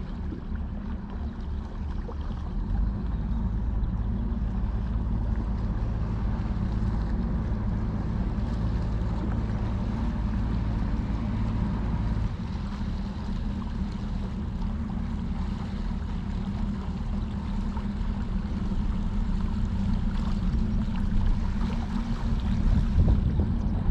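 Engine of a small river passenger ferry running as the boat approaches the pier, a steady low drone that grows louder toward the end.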